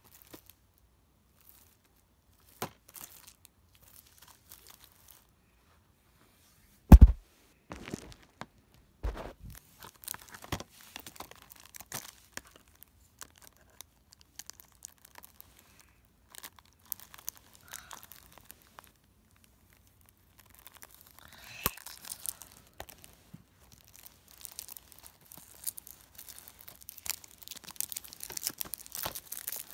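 Plastic shrink wrap on a Blu-ray case being poked with a pencil and torn off, with scattered crinkling and tearing crackles. There is one loud knock about seven seconds in, and the crinkling grows denser near the end.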